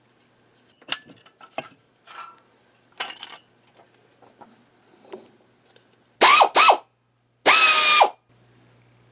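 Light clicks and clatter of tools or parts being handled, then three short, loud bursts of a power tool running, the whine of the first two falling in pitch as it spins down. A low steady hum comes in near the end.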